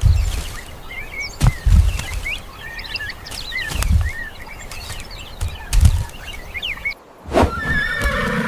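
Small birds chirping and twittering, with several dull low thumps. Near the end a horse begins to neigh.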